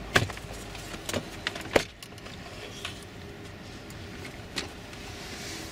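Clips on the RAV4's plastic lower dashboard panel snapping loose as the panel is pulled free, heard as about five sharp plastic clicks and knocks, the loudest near the start and just under two seconds in.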